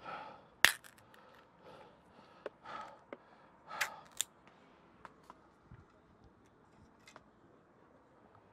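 Hands handling gear: a few sharp clicks and snaps with short rustles in between. The loudest snap comes under a second in, and two quick clicks come about four seconds in.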